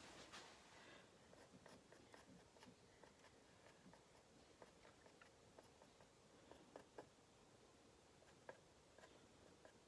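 Near silence with faint scattered light taps and scrapes: a small stick working wet acrylic paint on a wooden panel.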